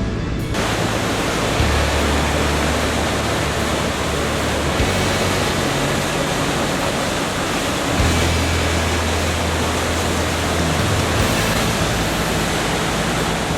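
Steady roar of the Gullfoss waterfall, a loud dense rushing with no breaks.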